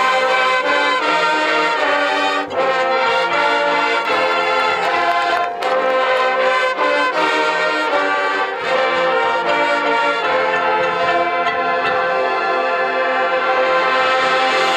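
High school marching band playing loud sustained brass chords, with the horn line's trombones and trumpets to the fore and sharp percussion hits cutting in now and then.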